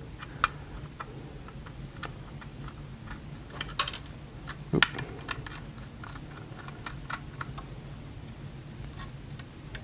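Scattered small clicks and taps of a solid state drive being fitted into a plastic drive tray, with a few louder knocks about half a second, four and five seconds in, over a low steady hum.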